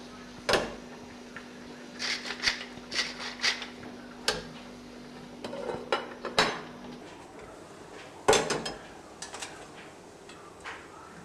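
Enamel saucepan, lid and pans clattering on a gas stove's grate: a string of knocks and clinks in clusters as the lid is lifted and pans are moved, the loudest knock about eight seconds in.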